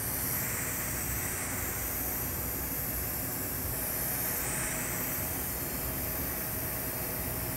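TIG welding arc on a carbon steel pipe socket fitting, a steady even hiss, during the fill pass.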